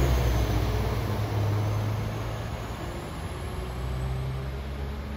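West Midlands Railway Class 196 diesel multiple unit pulling away from a station platform, its diesel engines running with a low, steady hum. The sound slowly fades as the train draws off down the line.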